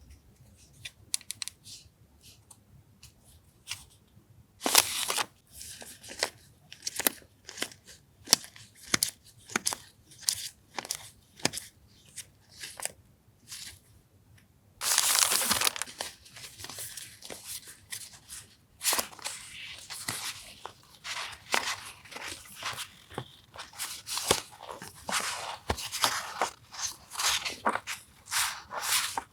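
Paper and plastic stationery packaging being handled and crinkled: a run of short taps and rustles, with a longer, louder stretch of rustling about fifteen seconds in and busier rustling toward the end.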